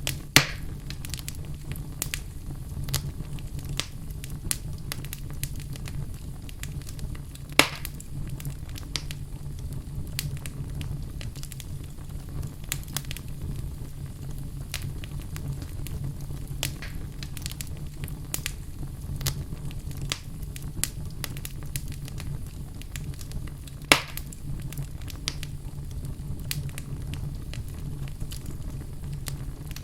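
Wood fire burning in a fireplace: frequent small crackles over a steady low rumble, with three louder pops, one just after the start, one about 8 seconds in and one about 24 seconds in.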